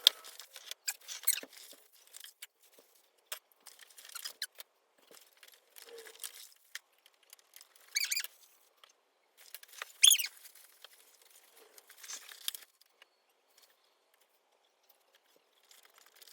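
Scattered handling noises of an animatronic prop being assembled and dressed: short rustles and squeaks of its parts and costume being fitted, in bursts with pauses between, the loudest two being squeaks about eight and ten seconds in.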